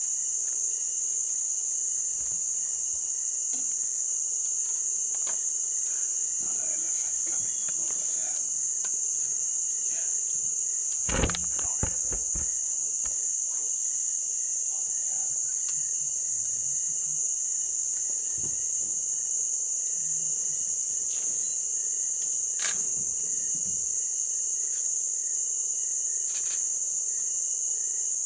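Steady, shrill chorus of insects droning without a break. A brief cluster of knocks comes about eleven seconds in.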